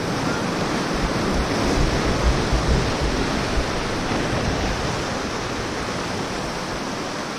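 Sea surf washing and breaking over rocky shore: a steady rush of water, with wind buffeting the microphone.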